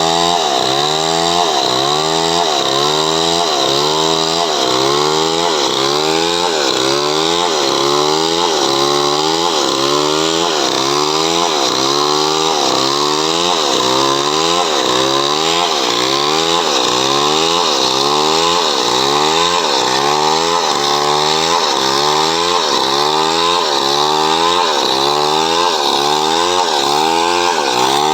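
Chainsaw cutting coconut wood, its engine pitch rising and falling about once a second as the cut loads it.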